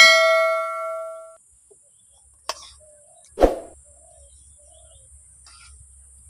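Steel serving ladle striking the rim of a metal cooking pot of chicken curry, ringing with a clear metallic tone that fades over about a second and a half. Two shorter knocks of the ladle against the pot or plate follow a few seconds later.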